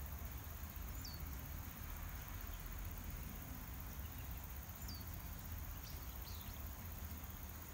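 Outdoor ambience: short, falling bird chirps about a second in and again around five to six seconds, over a steady high insect trill and a low rumble.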